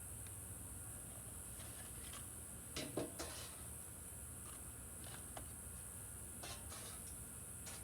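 Steady high-pitched drone of insects (crickets or cicadas) with a few soft rustles and clicks, the loudest a short cluster about three seconds in.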